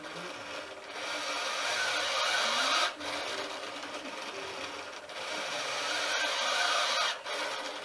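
Large sail-winch servo of an automated Ambu-bag (bag-valve-mask) ventilator running as its arm squeezes and releases the bag in a steady breathing cycle. The noise breaks off briefly about every two to three seconds as the stroke reverses, and is louder on alternate strokes.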